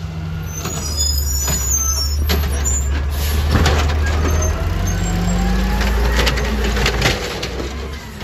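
Garbage truck's diesel engine running close by, its pitch rising about five seconds in, with scattered metallic clanks and a few high squeaks near the start.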